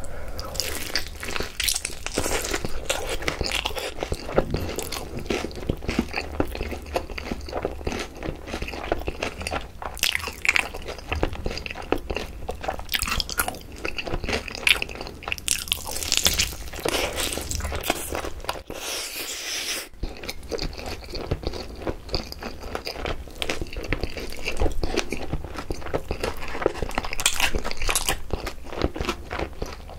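Close-miked biting and chewing of a yangnyeom-sauced fried chicken drumstick: the fried coating crunching, with dense, irregular crackles throughout.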